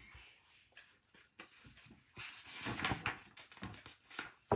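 Pages of a paperback picture book being turned and handled, with faint paper rustling and a short sharp tap near the end.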